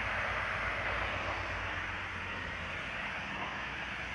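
Black & Decker steam mop in use on floor tiles: a steady hissing noise with a low rumble underneath.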